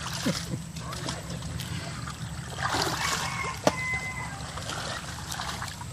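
Kayak paddle splashing and churning through a dense mat of water hyacinth, with water trickling and leaves rustling, and one sharp knock about three and a half seconds in.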